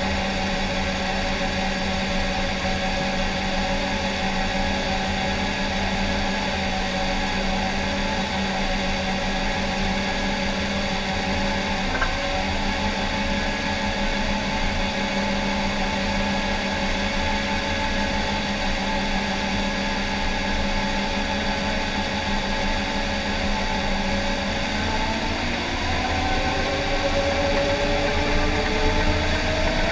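John Deere 750K crawler dozer's diesel engine running steadily under load as the dozer pushes dirt, heard from the cab; its pitch climbs and it gets a little louder over the last few seconds.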